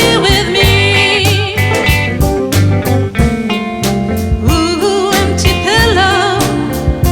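Live blues band playing an instrumental passage: drums keeping a steady beat under a bass line, with a lead instrument playing a melody with heavy vibrato.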